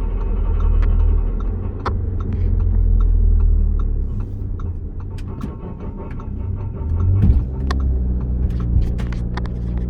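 A car running with a heavy low rumble and steady droning tones, broken by scattered clicks and knocks, with a louder knock near the end.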